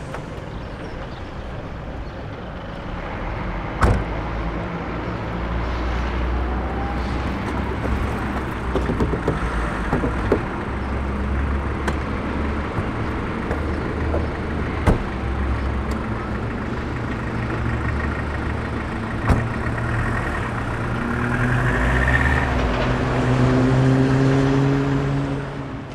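A car engine running steadily, with sharp knocks about 4, 15 and 19 seconds in, like a car door or trunk lid shutting. Near the end the engine note rises and grows louder as the car pulls away.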